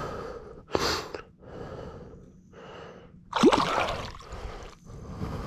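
Irregular bursts of splashing water as a Murray cod is released by hand and kicks away, the loudest splashes about one and three seconds in.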